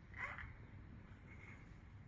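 Sleeping cat snoring faintly, one short snore about a quarter of a second in.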